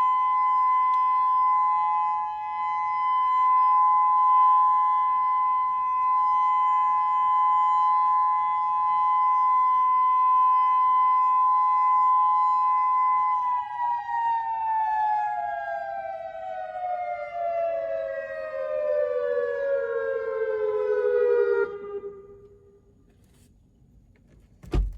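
Whelen WPS-2000-16 electronic warning siren sounding its steady alert tone, two close pitches near 1 kHz held level. About halfway through the pitch begins to fall, winding down over roughly eight seconds before cutting off. A single sharp knock comes right at the end.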